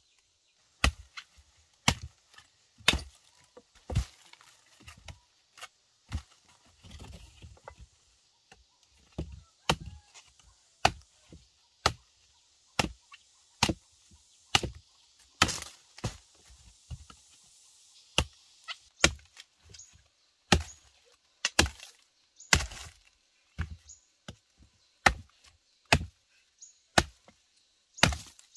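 Chopping into wood with a blade, one sharp strike about every second. The strikes pause for a few seconds near the start, then run on steadily.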